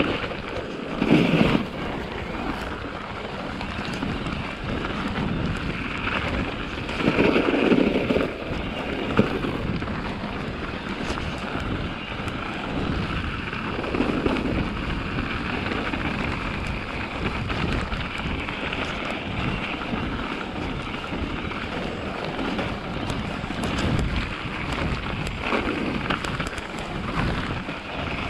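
Steady rush of wind on the microphone and mountain bike tyres rolling over snow, with a few louder jolts as the bike rides over bumps.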